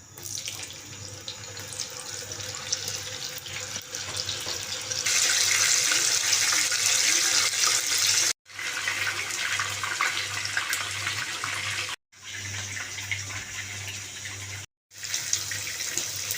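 Water running from a kitchen tap into a sink, a steady rushing splash that grows louder for a few seconds in the middle. It comes in several short stretches that cut off abruptly.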